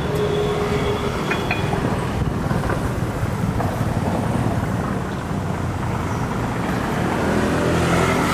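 Cars driving slowly past on a city street, a steady engine and tyre rumble that grows louder near the end as another car comes close.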